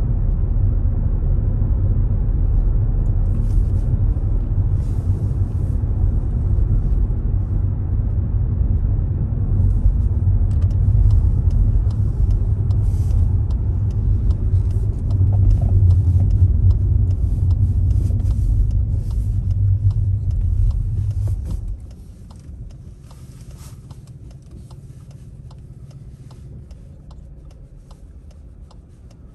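Road and engine rumble inside a moving car, heavy and low. It drops away suddenly about 22 seconds in as the car comes to a stop. Faint clicking ticks run through the second half.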